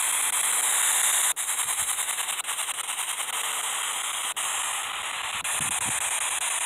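Radio static from a ghost-hunting spirit box sweeping through stations: a steady hiss that turns rapidly chopped for about three seconds, starting and ending with a click.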